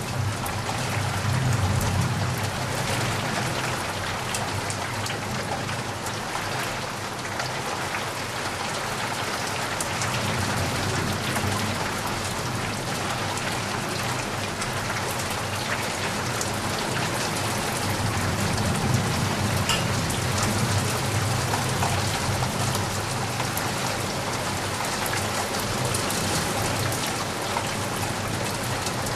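Steady rain with many drops tapping outside a window. A low rumble underneath swells and fades several times.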